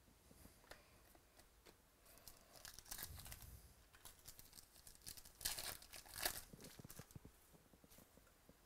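Trading-card pack wrapper and plastic packaging crinkling and tearing in irregular rustles, loudest a little past the middle.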